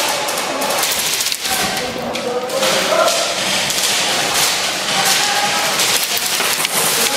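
Airsoft gunfire: many sharp clicks and snaps of guns shooting and BBs striking walls and objects, coming irregularly throughout, with distant voices of other players underneath.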